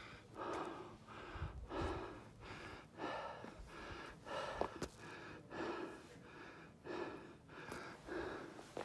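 A hiker's heavy breathing while climbing on foot: a steady in-and-out rhythm of about one breath a second, with a few soft footstep thumps.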